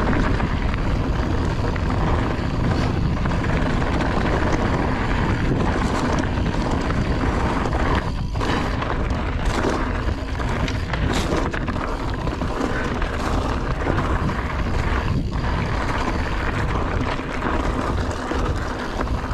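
Wind buffeting the microphone over the rumble of mountain bike tyres rolling fast on a loose, rocky trail. A few sharp knocks come through as the bike hits rocks.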